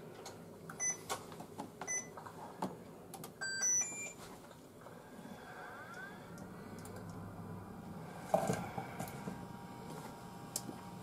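Induction cooktop's control panel beeping a few times in the first four seconds as it is switched on and set, then the induction hob humming steadily from about five seconds in as it starts heating an empty stainless steel saucepan. A brief metal clatter comes about eight seconds in.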